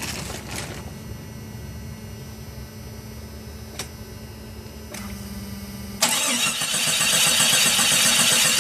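1996 Jeep Grand Cherokee engine being started just after its throttle body was cleaned of carbon deposits. After a quiet stretch with a faint hum and a single click, the engine cranks and catches about six seconds in, then keeps running loudly and steadily: a test of whether it will now idle without the throttle being held open.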